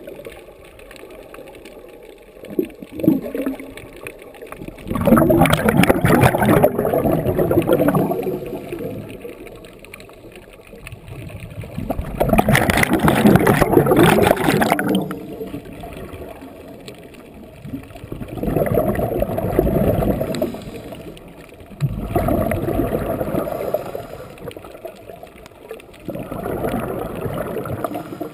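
Scuba diver breathing through a regulator underwater, with exhaled bubbles gurgling and crackling in five bursts a few seconds apart. The second and third bursts are the loudest.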